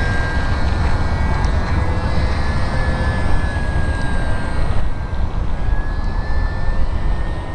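Wind buffeting the microphone in a heavy, steady rumble, over the thin, steady whine of a radio-controlled model airplane's motor and propeller in flight, its pitch wavering slightly.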